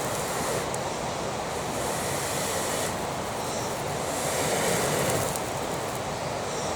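Wind blowing steadily, a continuous rushing noise that swells slightly a little past the middle.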